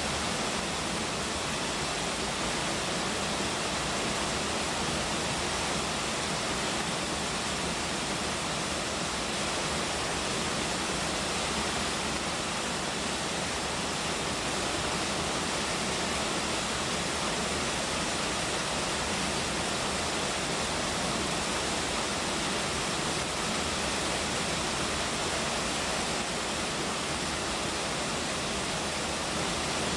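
Waterfall: falling water rushing in a steady, unbroken roar with no change in level.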